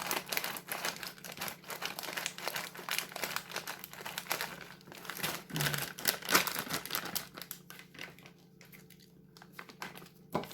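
A packet of roasted almonds crinkling as it is handled, dense crackling that dies down about seven seconds in.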